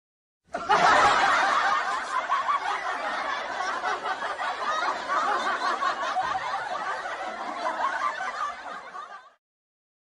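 Many voices laughing together at once, the "laughing choir" sound effect. It starts about half a second in, is loudest at the start, and cuts off suddenly near the end.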